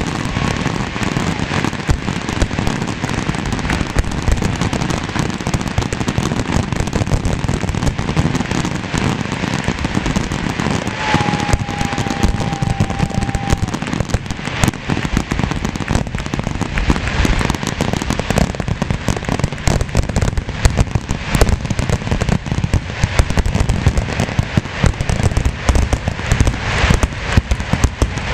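Aerial fireworks going off in a rapid, unbroken barrage of bangs and crackling, with a brief steady whistle near the middle.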